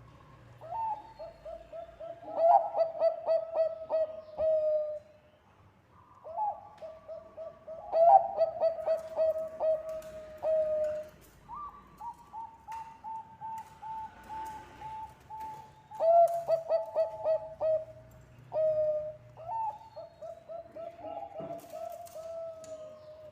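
Zebra dove (Bangkok-type perkutut) singing in repeated phrases of quick staccato coos. Each phrase opens on a higher note and runs into a fast string of short notes; one phrase near the middle is a long even note instead.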